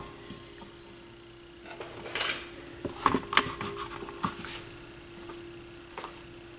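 Platter mats being swapped on a Technics SL-1301 turntable: the rubber mat lifted off and a cork mat laid on and smoothed down, giving a scatter of light clinks, knocks and scrapes between about two and four and a half seconds in. A faint steady hum runs underneath.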